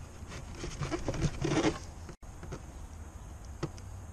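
Plastic knocking, rattling and rustling as a Peugeot 207 tail-light unit and its wiring are handled, busiest about one to two seconds in, with one sharp click near the end.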